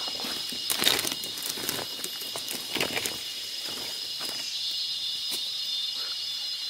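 Footsteps crunching through dry leaf litter and fallen bamboo on a jungle floor, loudest about a second in and again near three seconds. A steady high insect drone runs underneath.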